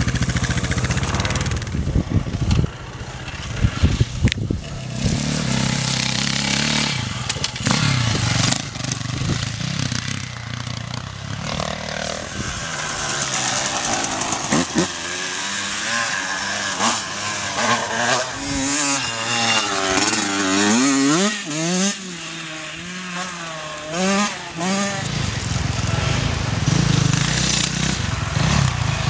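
Off-road racing motorcycle engines running hard, the pitch rising and falling again and again as the throttle is worked over rough ground.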